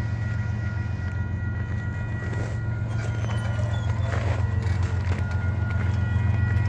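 Railway grade-crossing warning bell ringing steadily as the crossing gates lower, over a steady low rumble.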